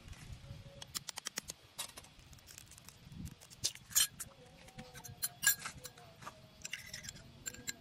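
A metal spoon tapping an eggshell in a quick run of light taps, then the shell cracking open and the egg dropping into a small glass bowl, with the spoon clinking against the glass near the end.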